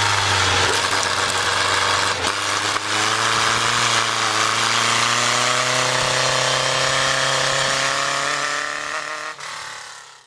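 Sports car engine pulling steadily under load, its pitch rising slowly, with a loud rushing noise over it; it fades out near the end.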